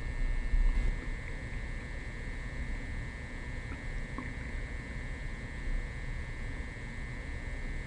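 Upset stomach gurgling and churning after coffee and prune juice, picked up without the microphone pressed to the belly: a low rumble, louder about half a second in, with a few faint short liquid blips, under a steady high-pitched whine.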